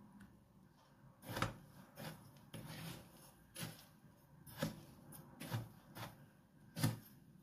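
A metal spoon scraping and knocking in a plastic bowl of breadcrumbs while a chicken wing is coated, about eight short, irregular strokes.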